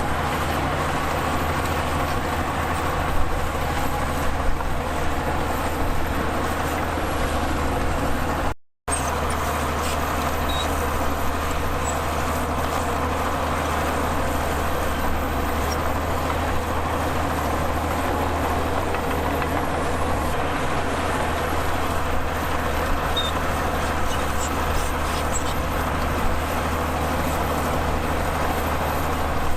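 Heavy diesel earthmoving machinery running steadily under load, a constant low engine drone with mechanical clatter. The sound cuts out for a moment about nine seconds in, then resumes unchanged.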